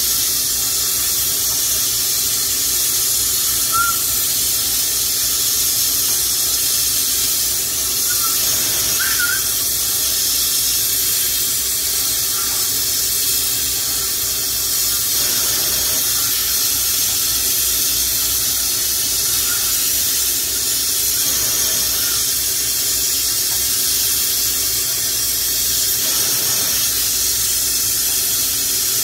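Lampworking bench torch flame hissing steadily, with a few faint short squeaks now and then.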